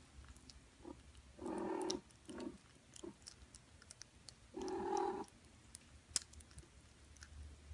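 A cat purring while kittens lick at a treat, making many small clicking sounds, with two short louder sounds, about one and a half and four and a half seconds in.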